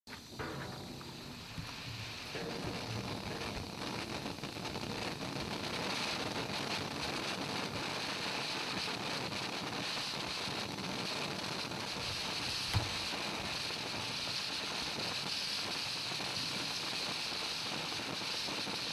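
Steady outdoor hiss with wind on the microphone, and a single short knock about two-thirds of the way through.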